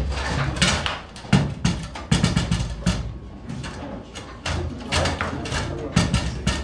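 Foosball in play: quick, irregular sharp clacks of the ball being struck by the figures and hitting the table, with rods knocking against the table frame.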